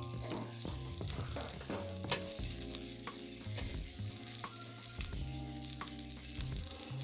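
Chicken pieces sizzling on a wire grill grid over charcoal, with sharp clicks of metal tongs and a fork against the grid and meat as pieces are moved and turned. Music plays underneath.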